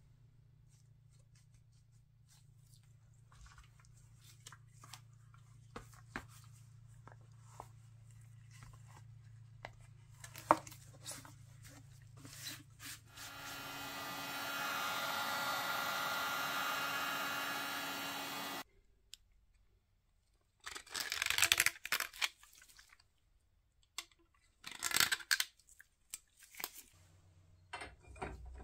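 Workshop handling noise of small knocks and clicks over a low hum. It gives way to about five seconds of a steady motor whirr with a whine, which cuts off suddenly. After a short quiet gap come two loud rasping bursts, like tearing or scraping.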